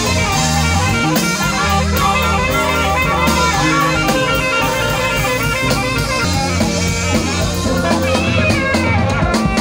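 Live band music: a saxophone playing the lead melody over a drum kit, a bass line and keyboard.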